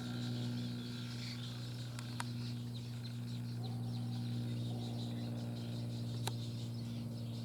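Outdoor pond ambience: small birds chirping faintly over a loud, steady low hum, with a few sharp clicks, twice close together a couple of seconds in and once near the end.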